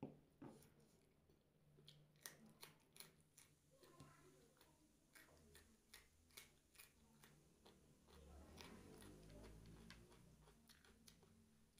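Close-up eating of a crunchy dry snack: irregular sharp crisp crunches, several a second, with a low rumble joining about eight seconds in.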